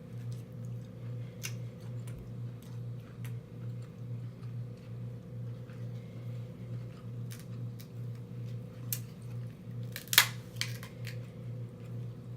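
Close-up eating sounds from a king crab leg: scattered small clicks and snaps of shell cracking and mouth smacking, with one sharp, louder crack about ten seconds in, over a steady low hum.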